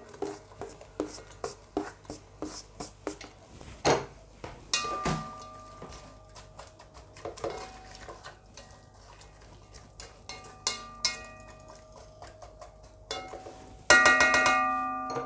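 Chopped onion scraped off a plastic cutting board into a metal pot, with a quick run of light taps and clicks, then a slotted spatula stirring the onion and knocking against the pot so the metal rings. The loudest knock comes about a second before the end.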